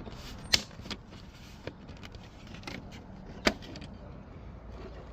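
Sharp plastic clicks and taps from handling the mirror's small plastic trim cover and its clips, with two loud clicks about half a second and three and a half seconds in and a few fainter ticks between.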